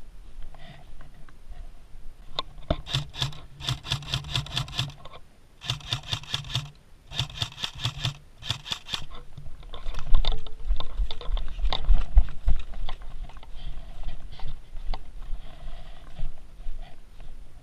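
Airsoft gun firing three bursts of rapid, evenly spaced shots, followed by low thumps and rubbing on the microphone.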